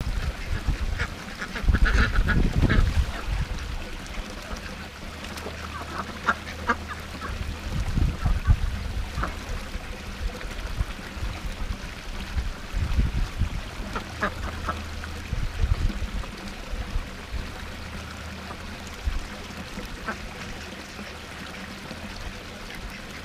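Domestic ducks quacking in short clusters of calls, with some low rumbles under the loudest ones. Underneath is the steady splash of a small waterfall spilling into the pond.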